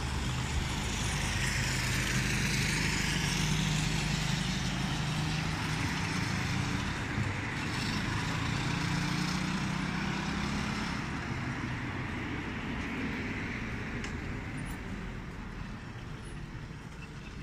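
Street traffic noise: a motor vehicle's engine hum and tyre noise passing close, loudest in the first several seconds, then slowly fading.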